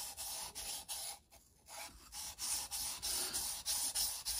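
Steel knife blade of a Mora Companion being stroked back and forth on a wet 1000-grit whetstone, a rhythmic scrape about three strokes a second. It briefly stops a little over a second in, then picks up again. This is the 1000-grit stage of sharpening, after the 400 grit, refining the edge.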